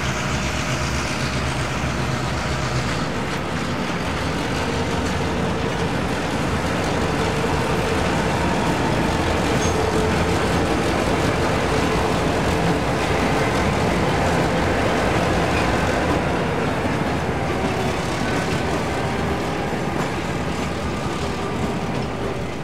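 Victorian Railways T-class diesel-electric locomotives running as they haul a train of heritage carriages, a steady heavy engine drone with several held tones.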